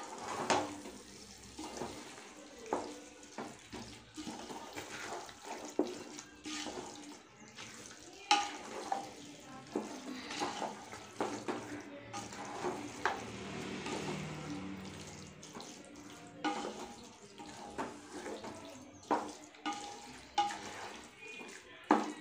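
Metal spoon stirring yogurt-marinated chicken through masala in an aluminium pot: wet squelching and slopping, with irregular scrapes and knocks of the spoon against the pot.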